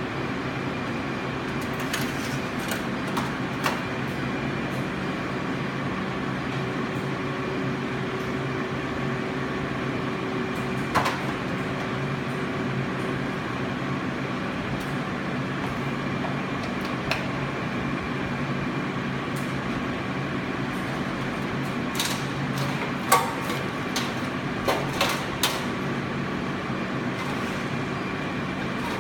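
Steady machine hum holding several fixed tones, with scattered sharp clicks and knocks, a cluster of them a few seconds before the end.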